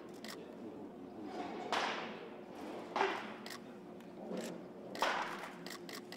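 Pitched baseballs smacking into catchers' mitts: three sharp leather pops, roughly one and a half to two seconds apart, each trailing off briefly.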